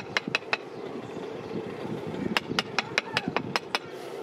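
Wooden hand rammer knocking as it packs molding sand into a metal casting flask: a few sharp knocks just after the start, then a quick run of about eight, about five a second, past the middle. A steady low background noise lies under them.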